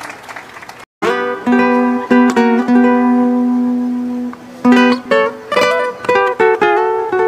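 Acoustic guitar playing a slow plucked introduction, single notes and chords left to ring, starting after a short silent gap about a second in.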